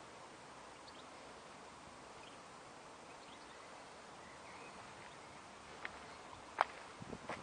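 Quiet outdoor background hiss with a few faint, short chirps, then several sharp clicks in the last second and a half.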